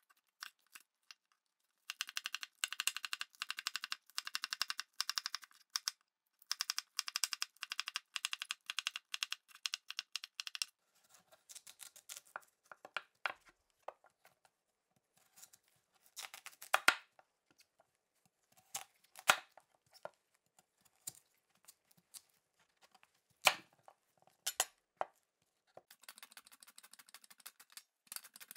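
A kitchen knife chopping green onion on a bamboo cutting board in two quick runs of many strokes a second. Then come slower single cuts through a large Korean radish, each ending in a sharp knock of the blade on the board. Near the end, the radish is pushed rapidly back and forth over a plastic mandoline slicer's blade above a stainless-steel colander.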